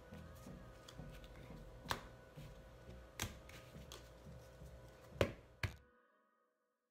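Quiet background music with a low pulsing beat and a few sharp clicks, cutting off to silence about six seconds in.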